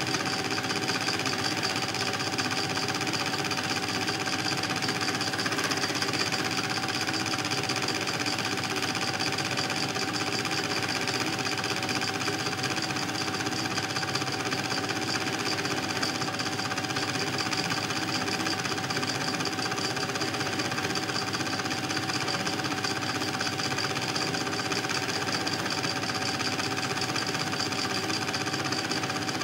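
Home-movie film projector running: a steady, rapid mechanical clatter with a constant hum, unchanging through the shot changes of the silent reel being played back.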